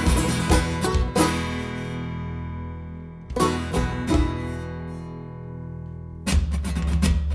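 Live folk-rock band of banjo, acoustic guitar, bass guitar and drums playing. The strumming stops about a second in, leaving a ringing chord to die away; a second chord is struck and fades; then the full band comes crashing back in with heavy bass near the end.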